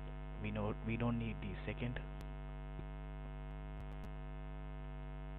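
Steady electrical mains hum with many even overtones in the recording, with a few words of speech in the first two seconds and a few faint ticks later.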